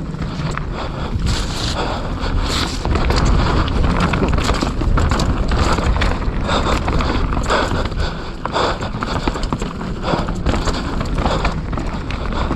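Mountain bike ridden fast down a rough trail: wind buffeting the microphone with tyre noise, and frequent knocks and rattles of the bike over bumps.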